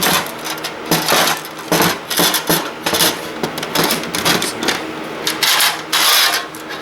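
Metal parts of a server blade being handled and pulled apart by hand: a quick run of small clinks, knocks and rattles.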